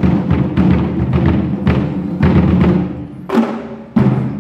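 Taiko-style drum ensemble playing a fast, dense run of strokes, then two heavy unison hits about three and four seconds in that ring out: the closing strokes of the piece.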